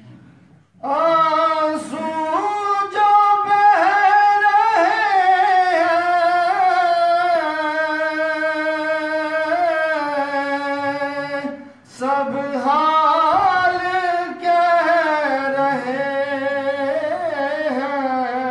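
A solo male voice singing an Urdu naat into a handheld microphone, with long held notes and ornamented turns. The voice comes in about a second in and breaks briefly for breath near the middle.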